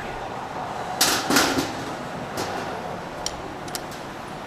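Metal tools and parts clanking and clicking during engine disassembly: a short burst of clatter about a second in, then a few lighter clicks.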